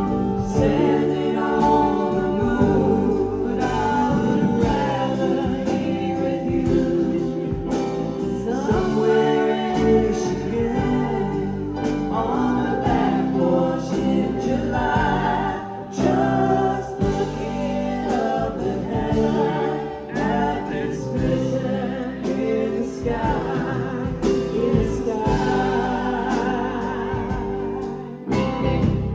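Live band performing a song, with singing over the instruments throughout.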